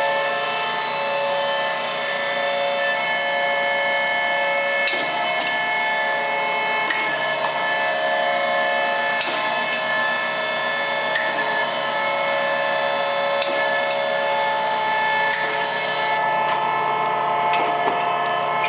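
Nicco NSG-6H automatic surface grinder running, with a steady whine of several tones and a sharp click about every two seconds. A high hiss over the whine cuts off about sixteen seconds in.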